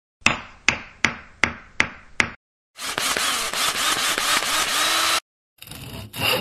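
Workshop tool sound effects: six sharp hammer blows about every 0.4 s, then a power tool running for about two and a half seconds, then strokes of a hand saw on wood starting near the end.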